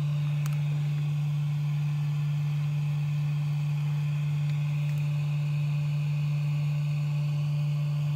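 A steady low electrical hum: one unchanging tone, with a faint higher whine above it.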